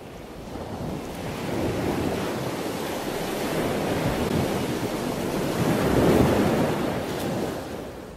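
Rushing, wind-like noise on the microphone that swells and fades, with no clear tone or rhythm.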